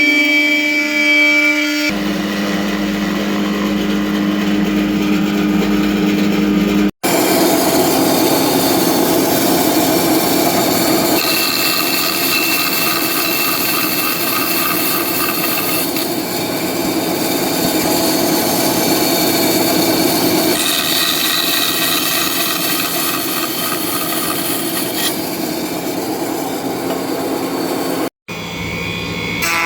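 Woodworking power tools cutting and working wood, heard as a run of short spliced clips: a steady mechanical whine with sawing noise whose pitch and character change abruptly every few seconds, with two brief dropouts.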